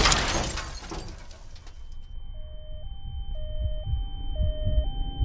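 The tail of a car crash, with debris clattering and settling in the first second or so. Then a steady high ringing tone sets in, and about two seconds in a two-tone hi-lo emergency siren starts, switching pitch about twice a second over low regular thumps.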